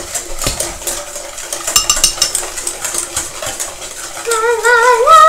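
Utensil clinking and scraping quickly and irregularly against a mixing bowl as egg whites are beaten for meringue. Near the end a voice starts singing over it.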